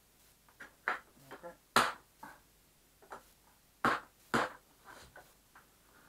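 Sharp clicks and knocks from the plastic case of a Soviet Elektrosila-2 vacuum cleaner being handled during reassembly. The loudest knock comes about two seconds in, with two more close together around four seconds.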